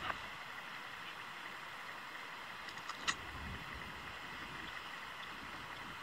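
Steady hiss of river ambience, open water and wind, with a faint steady high tone running under it. A sharp click at the start and another brief click about three seconds in.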